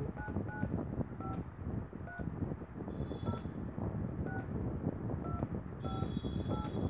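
A Spacetel ST-111 telephone's DTMF key tones as a phone number is dialled by hand: about nine short two-note beeps at an uneven pace, one per key press.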